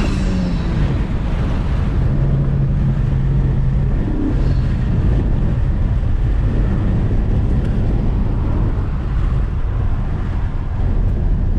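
Honda Civic Type R's turbocharged 2.0-litre four-cylinder, breathing through a K&N Typhoon cold air intake, heard from the cabin with the windows open. The engine note falls away just after the start, then the car runs at a steady cruise under wind and road noise.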